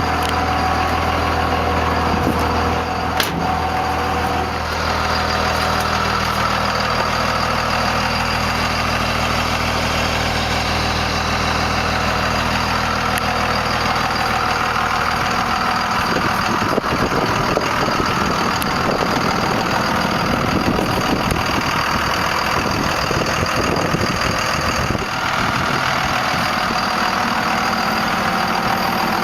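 Cummins 5.9-litre inline-six turbo diesel of a 1998 Dodge Ram 2500 idling steadily. About halfway through, the even low hum gives way to a rougher, noisier sound.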